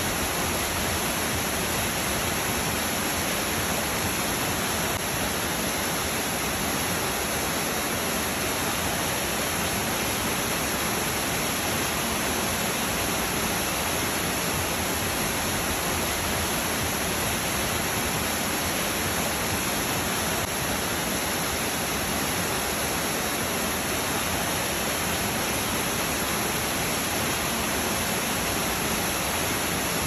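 Small waterfall cascading down a series of rock steps: a steady, even rush of falling water.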